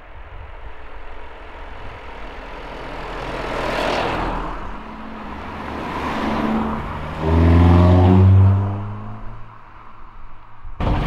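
Several cheap cars passing one after another at speed on a narrow lane. Tyre and engine noise swells twice as they come by, then the loudest car passes about seven seconds in with a strong engine note that fades away.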